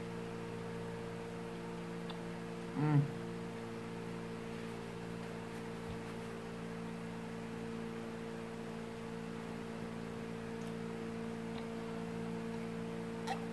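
Steady low hum made of several tones, with a short murmur of a woman's voice about three seconds in and a faint click near the end.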